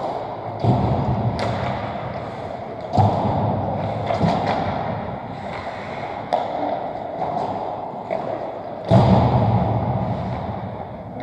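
Ice hockey play in an indoor rink: a steady rink hiss with about five dull thumps and knocks from sticks, pucks and skates. The two loudest thumps come just under a second in and about nine seconds in.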